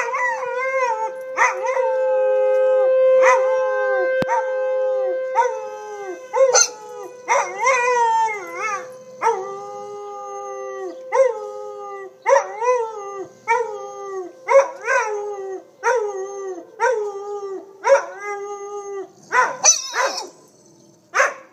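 A Vizsla and a French mastiff howling in short notes that fall in pitch, about one a second, over the steady tone of a tornado siren. The siren fades out near the end.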